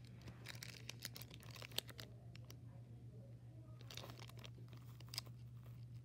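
Faint crinkling, crackling and scattered small clicks of a plastic baseball card pack wrapper being picked at and pulled by hand, a pack that is hard to tear open without scissors. A steady low hum runs underneath.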